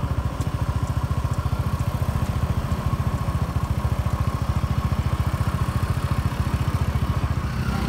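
Small motor scooter engines running at low speed, a rapid, even putter with a faint steady whine above it.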